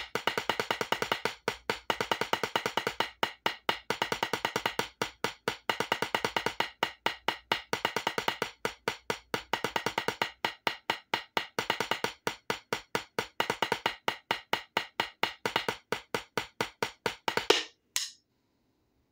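Wooden drumsticks playing fast, even strokes on a rubber drum practice pad, in rhythmic phrases broken by short pauses. The playing stops near the end with one louder hit.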